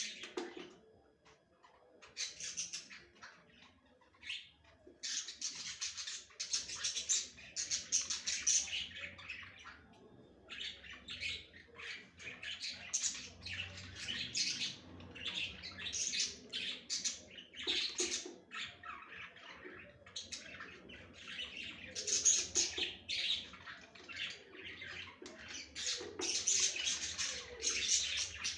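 A flock of budgerigars chattering, with fast chirps, warbles and squawks in irregular bursts: the excited calling typical of budgies in breeding condition.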